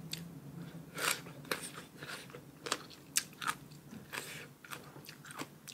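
Crisp bites and chewing of unripe sour green mango (mamuang bao), close to the microphone: a run of irregular sharp crunches, loudest about a second in and again around three seconds.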